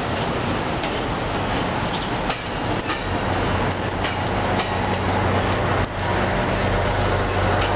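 NJ Transit bilevel passenger coaches rolling past, a steady rumble with sharp wheel clacks over the rail joints coming every second or so. A low steady hum strengthens about halfway through.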